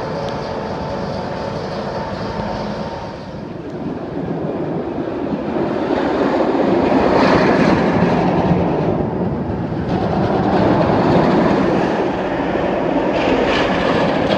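Kumba, a steel roller coaster, running a train through the track overhead: a heavy rumbling roar of wheels on steel track. The rumble is milder at first, builds about five seconds in, and then stays loud, swelling twice as the train passes.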